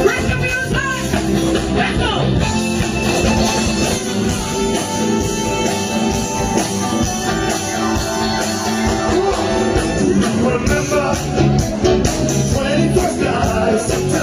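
A live cover band playing a song, with singing over the band.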